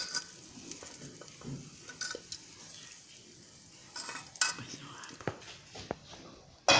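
Metal spoon scraping and clinking against a bowl while stirring fried diced calabresa sausage and bacon into mashed potato, with a sharp, loud knock of the spoon near the end.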